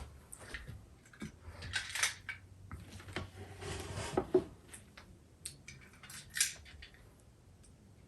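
Handling noises: a scatter of light clinks, taps and short scrapes as small hard objects are picked up and moved about, busiest in the first two thirds and dying away near the end.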